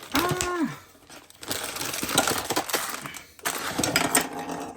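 Plastic packaging crinkling and rustling as a snap-together figure kit's box is opened, with small plastic parts clicking and clinking against each other.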